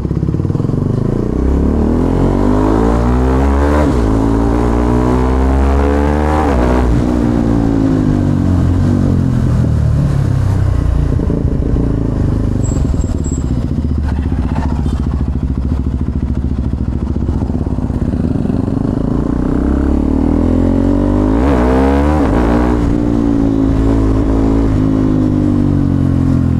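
KTM Duke 390 single-cylinder engine pulling away and accelerating: revs rise and drop twice through the upshifts in the first seven seconds, then hold steady while cruising, with one more short rise in revs about 21 seconds in.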